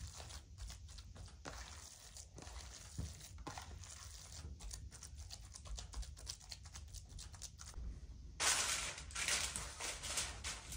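Hands kneading raw minced-meat köfte mixture in a plastic bowl: irregular wet squishing and patting. Near the end a louder rustling hiss sets in.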